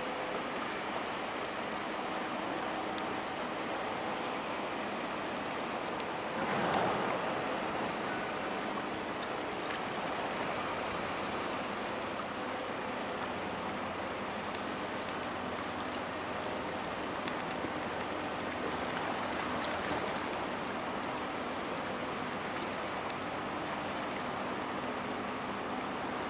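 Steady rush and splash of water at a large container ship's bow: the bow wave breaking along the hull and a discharge of water pouring from a hull outlet into the sea, with a brief surge about seven seconds in.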